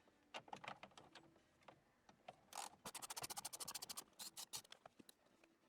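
Ratchet wrench clicking quickly and evenly as it turns out the 7 mm bolts holding an instrument cluster, with a few scattered clicks before the fast runs begin about halfway in.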